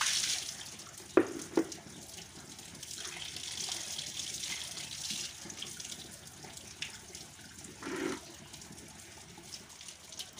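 Water running from an outdoor tap and splashing onto concrete and into a bucket, with hands rinsing under the stream. A bucket is emptied in a gush at the start, two sharp knocks come a little over a second in, and a dull thump comes near the end.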